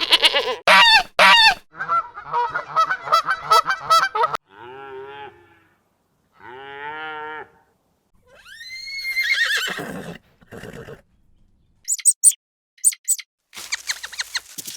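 A string of different animal calls, one after another with short silent gaps. They include pitched held calls, a call that rises and then falls about eight seconds in, and short high chirps near the end.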